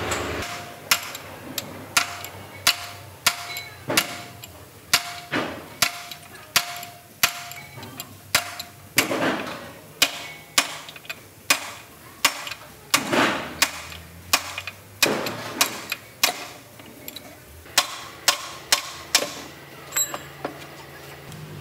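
Hammer blows on steel, struck repeatedly at roughly one to two a second, several with a short metallic ring. A punch is being driven against a loader gearbox housing to free a gear shaft.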